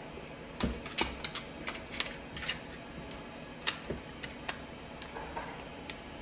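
Irregular small clicks and taps of a 3D-printed plastic flintlock foam-dart blaster being handled and readied to fire, plastic parts knocking and clicking against each other.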